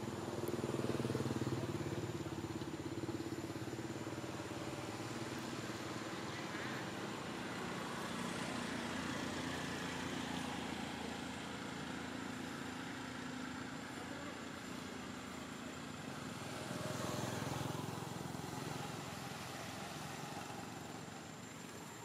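An engine running steadily nearby, its low hum dropping in pitch for a while and rising again with a swell in loudness late on, over a thin steady high tone.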